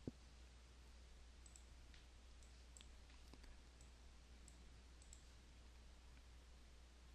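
Faint computer mouse clicks, about eight scattered over several seconds, over a low steady hum; a short low thump just after the start is the loudest sound.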